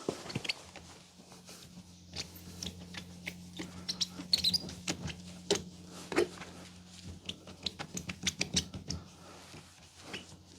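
Irregular scratching, small squeaks and clicks of hand-rubbing plastic polish into a plastic headlight lens, over a steady low hum.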